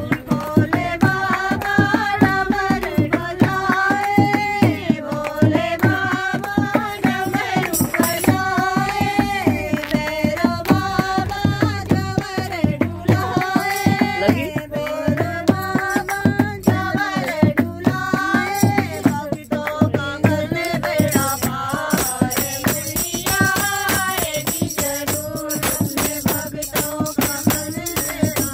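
A Hindi devotional bhajan to the Mother Goddess, sung to the steady beat of a dholak drum with hand clapping keeping time.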